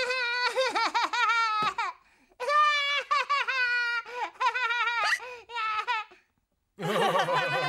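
Cartoon characters laughing together: high children's voices in three bouts of pulsing laughter, joined near the end by a deeper adult voice.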